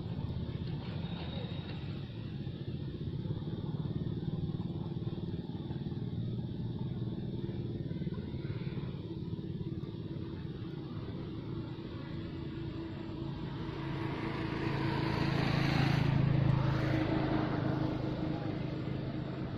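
A motor vehicle's engine running steadily, growing louder about three-quarters of the way through as it passes, then easing off.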